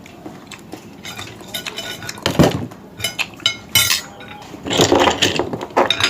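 Dishes and tableware clinking and clattering on a table in irregular knocks and clicks, starting about a second in, with a louder clatter near the middle and a cluster of knocks near the end.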